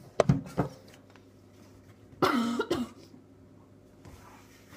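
A boy coughing and gagging at the taste of a mouthful of salt. There are a few short coughs just after the start, then one longer voiced cough or retch about two seconds in.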